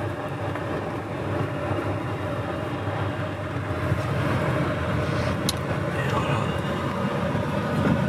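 Car moving slowly, heard from inside the cabin: a steady low engine and road rumble, with a single sharp click about five and a half seconds in.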